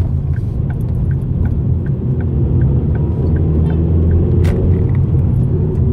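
Steady low engine and road rumble inside a moving car's cabin. Through the first half there is a regular light ticking, about three ticks a second, and about four and a half seconds in there is a single sharp click.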